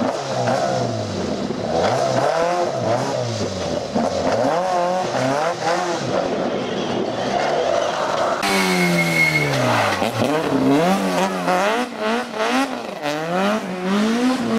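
A Mk2 Ford Escort rally car's engine revving hard as it spins donuts, the pitch rising and falling over and over with the throttle while its rear wheels spin on loose gravel. About eight seconds in, the sound changes to another rally car, its engine sweeping down and back up in pitch as it revs.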